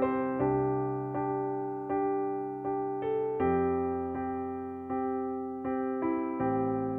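Slow, calm electric piano music: soft chords and single notes struck about once a second, each fading away, with the harmony changing twice.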